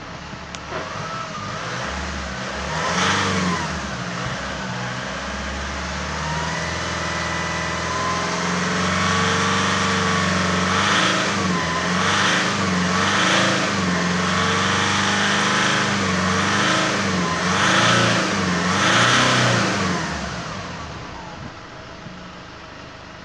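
A 2013 Nissan Navara D40's 2.5-litre four-cylinder turbo-diesel running, heard from inside the cab. It idles, gets a brief rev about three seconds in, then is held up around 3,000 rpm with a series of rev blips, and drops back to idle near the end.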